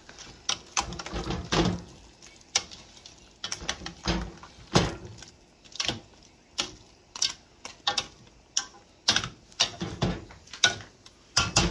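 A cooking spoon knocking and scraping against a stainless steel pot while stirring a thick vegetable soup, with irregular sharp clacks about one or two a second.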